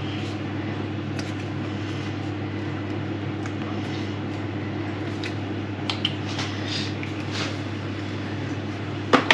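Steady low mechanical hum, with a few faint clicks and a sharper knock near the end.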